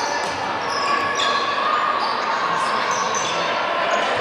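Basketball game in a gym: a ball bouncing on the court, many short high sneaker squeaks, and voices in the background.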